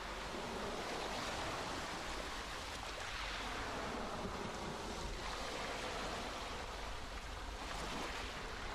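Steady rushing outdoor ambience, an even hiss of moving water or wind in trees, swelling gently a few times.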